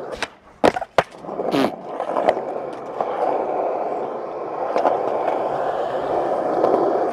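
Skateboard wheels rolling on rough old tennis-court asphalt. The rolling drops out just after the start, then comes a quick series of sharp board clacks, a tail pop and landing, within the first second, followed by a short scrape. Then the wheels roll on steadily.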